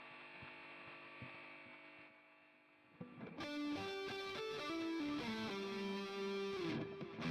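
Electric guitar played through a NUX MG30 multi-effects processor with a Joyo American Sound preamp pedal in its effects loop. A held chord rings out and slowly fades for about three seconds, then a single-note melodic lick is played.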